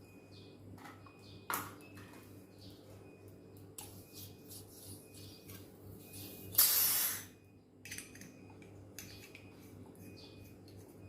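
A short hiss, like gas or spray escaping, lasting about a second past the middle, over a steady low hum with scattered light clicks and a faint high chirp repeating about twice a second.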